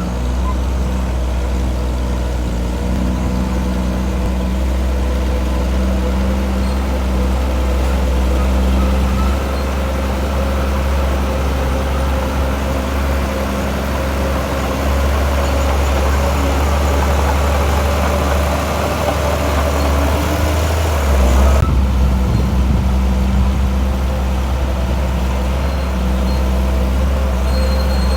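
Diesel engine of heavy earthmoving machinery running steadily, with a continuous low hum and engine tones; the sound changes abruptly about three-quarters of the way through.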